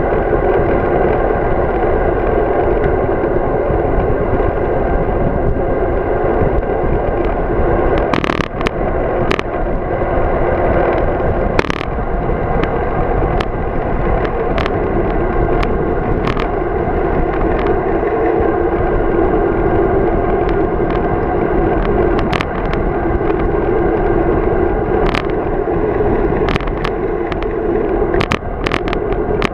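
Steady rush of wind and tyre noise from a road bike rolling along a paved path, heard through a handlebar-mounted camera. Scattered sharp clicks and knocks as the bike and mount jolt over bumps in the pavement.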